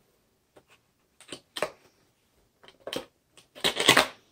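Single-edge razor blade cutting the tape seal on a cardboard box: a series of short, sharp scraping strokes, with the loudest cluster near the end.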